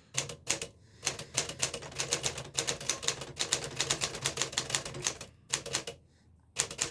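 1954 Smith-Corona Clipper manual portable typewriter being typed on: a quick, uneven run of key strikes for about five seconds, a short break with a few more strokes, then one last strike near the end.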